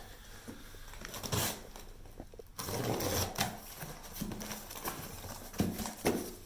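Cardboard accessory box and its packing being opened and rummaged through: rustling with several light knocks and thuds.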